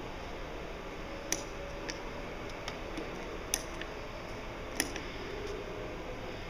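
Steady indoor background noise with about five faint, sharp clicks at irregular intervals.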